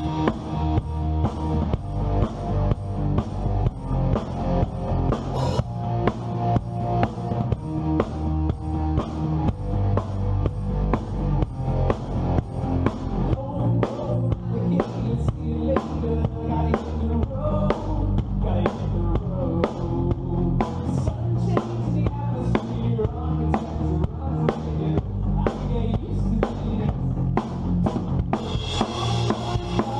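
A band playing an upbeat song on a steady beat, driven by a drum kit with kick and snare, with bass and other instruments holding notes underneath.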